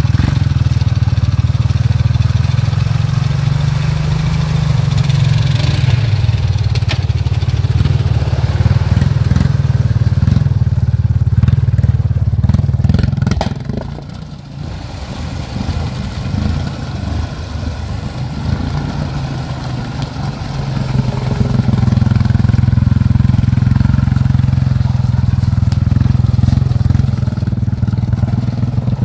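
Honda 300 ATV engine running under load as the quad wades through a deep mud hole. The engine sound drops about halfway through, then rises again a few seconds later.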